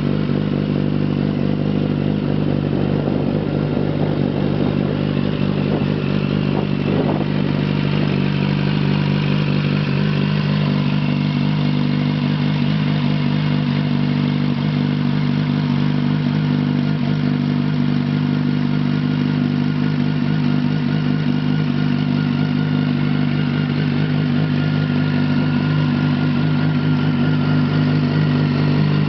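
Yamaha FZ1's inline-four engine idling steadily through a Mivv aftermarket exhaust, holding one even engine speed throughout.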